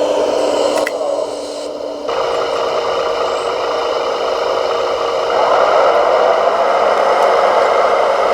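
Electric motors and gearing of radio-controlled construction models whining steadily. The sound changes abruptly about two seconds in and gets louder a little past the middle.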